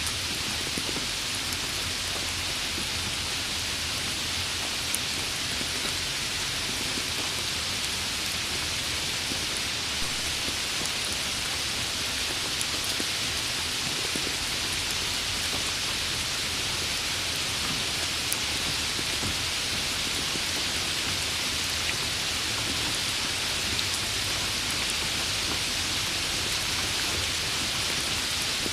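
Steady rain falling, an even hiss of water with scattered individual drops ticking now and then.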